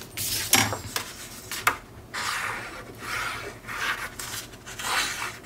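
Sheets of patterned scrapbook paper being rubbed, slid and shuffled over cardstock by hand: a series of short papery swishes, with a few sharp taps in the first two seconds.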